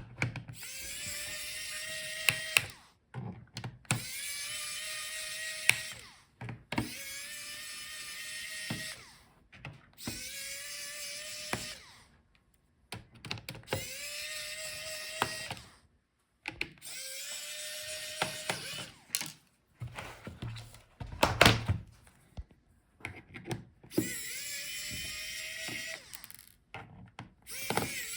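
Small electric screwdriver backing out the laptop's bottom-case screws. It runs in about seven short bursts of two to three seconds, the motor whine rising as each starts, with clicks and knocks between them.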